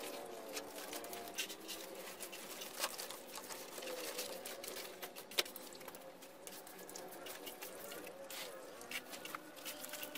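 Shallow water splashing and pattering in irregular short bursts as catfish flap in the drained cement tank and a hand net and wire basket are worked through the water. A faint wavering tone runs underneath.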